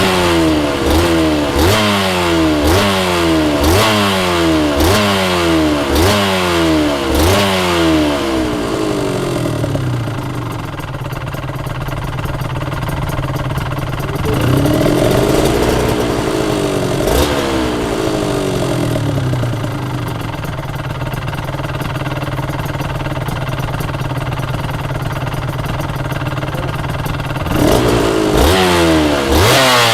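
Aprilia RS250's two-stroke V-twin engine through a Sugaya full exhaust system, revved in quick throttle blips about once a second, each rising and then dropping sharply. It settles to a steady idle about a third of the way in, with one slower rev in the middle, and the quick blips return near the end.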